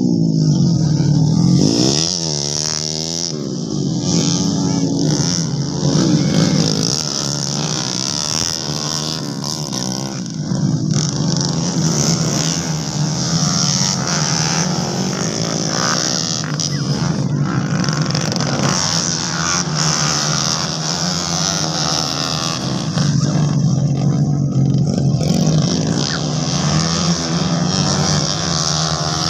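Racing motorcycle engines revving hard. Their pitch rises and falls as the bikes accelerate, shift and pass by, and several engines overlap at times.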